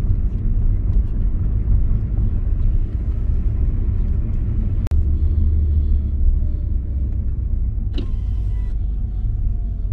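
Steady low rumble of a Mitsubishi Xpander Cross's engine and tyres heard inside the cabin while driving, with a sharp click about five seconds in.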